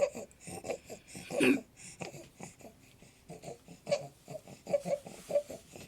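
Infant's noisy stridor breathing: short pitched breath sounds, two or three a second, with a louder cry-like sound about a second and a half in.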